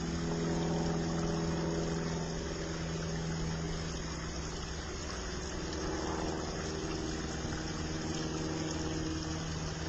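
A steady, low mechanical hum made of several even pitches, its upper tones shifting slightly about halfway through.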